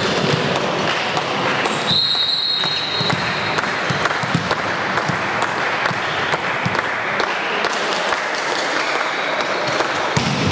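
Volleyball game in a reverberant sports hall: a referee's whistle blows briefly about two seconds in, and a volleyball bounces on the court floor several times over a steady background of crowd chatter.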